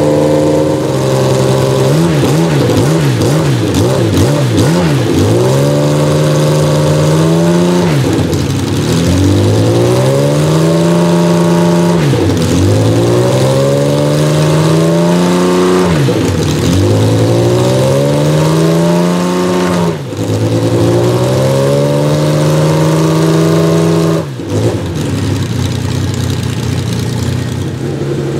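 The 1972 BRM P180's 3.0-litre 60-degree V12 running with the car standing still. The revs repeatedly drop and climb back up about every four seconds, holding at a steady pitch in between.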